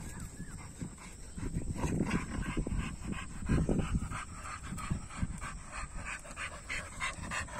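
Dogs panting rapidly and rhythmically, winded from play-fighting.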